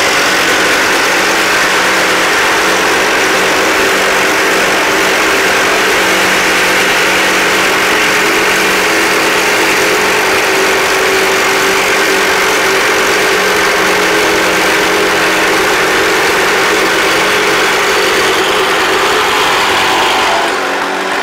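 Two Makita 18V cordless reciprocating saws running side by side at full speed, their blades sawing through stainless steel bar stock: a steady, loud metal-cutting noise. One saw carries a carbide-tipped thin-metal blade, the other a bimetal blade.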